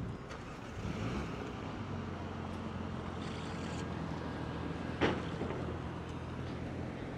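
A steady low engine hum over a haze of outdoor noise, with one sharp knock about five seconds in.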